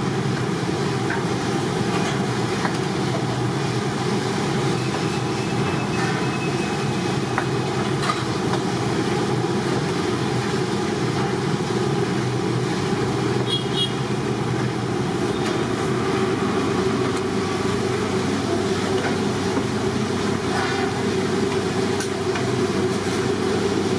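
Steady low rumbling drone with a few faint clinks.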